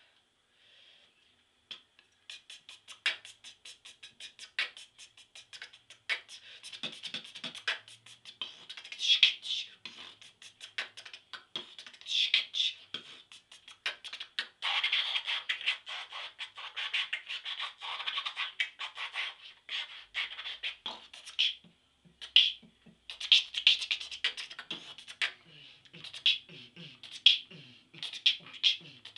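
Amateur solo beatboxing. After a brief pause it starts about two seconds in with fast runs of mouth clicks, then goes on in rhythmic beats mixing clicks and hissy snare-like bursts with some louder hits.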